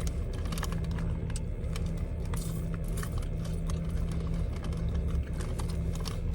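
Steady low hum of a car's interior, with many scattered small clicks and crackles over it.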